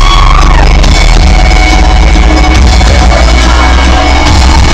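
Very loud live electronic dance music (kuduro) played through a concert PA, with heavy, steady bass, heard from within the audience.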